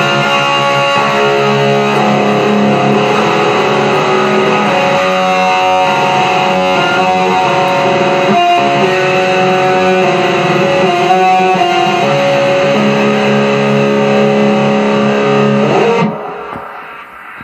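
White Les Paul-style solid-body electric guitar playing a riff of ringing chords through a crunchy, lightly distorted amp tone. About a second and a half before the end the playing stops and the last notes die away.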